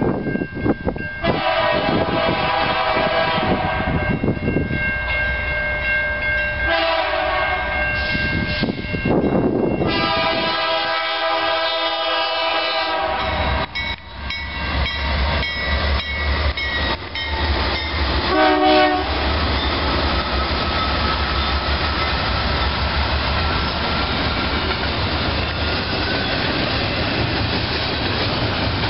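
BNSF freight locomotive's air horn sounding three long blasts and then a short one. The diesel locomotives then pass with a low engine rumble, and double-stack container cars roll by with steady wheel noise and a faint wheel whine.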